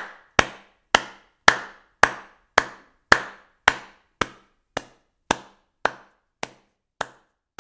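A steady series of sharp knocks, a little under two a second, each with a short ringing tail, slowly getting weaker toward the end.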